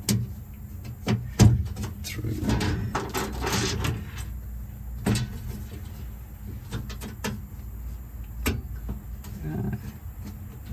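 Irregular knocks, clicks and scraping from a galvanized steel sheet being shifted and forced into position by hand, over a low steady hum.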